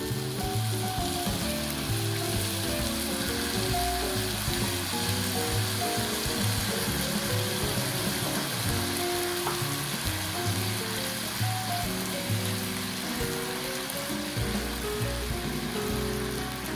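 Bacon rolls and onion sizzling steadily in a hot frying pan as soy sauce goes in, with background music playing a stepping bass line underneath.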